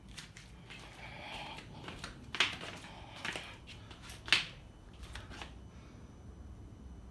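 A few irregular sharp clicks and knocks, two of them louder than the rest, about two and a half and four and a half seconds in.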